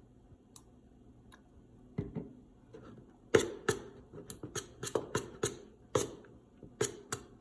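A utensil clicking and knocking against a mixing bowl while stirring a thickening slime mixture of glue, shaving cream and contact solution. An irregular run of sharp taps starts about two seconds in and comes several times a second from about three seconds on.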